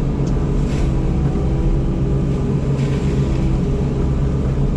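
Yanmar SV100 excavator's diesel engine running steadily under load, a constant droning hum with a couple of faint brief hisses.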